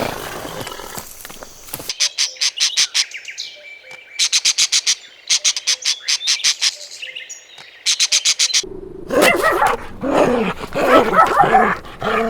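A bird calling in rapid runs of high chirps, about eight a second, each run lasting a second or so. From about nine seconds in, a louder, lower-pitched animal sound takes over.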